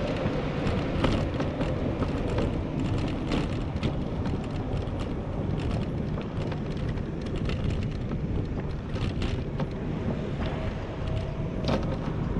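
Bicycle rolling over a brick-paved cycle path: a steady rumble with frequent small knocks and rattles from the bumps, and wind on the microphone. Road traffic, including a lorry, passes alongside.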